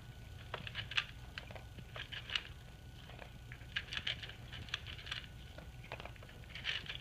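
Australian Shepherd puppy rummaging with her nose in a plastic dog puzzle toy for treats: many small irregular clicks and taps on the plastic, over a steady low hum.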